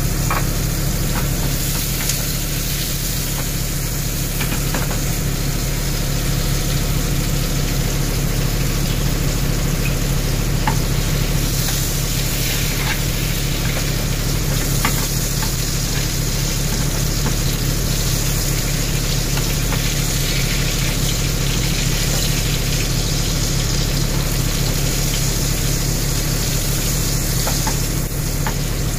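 Beef tenderloin steak sizzling steadily as it grills, with scattered small pops, over a steady low hum.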